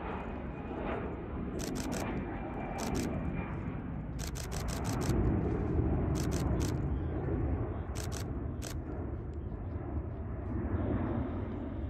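Jet rumble of an Airbus Beluga XL's twin Rolls-Royce Trent 700 turbofans passing overhead, loudest about halfway through. Several short runs of sharp clicks sound over it.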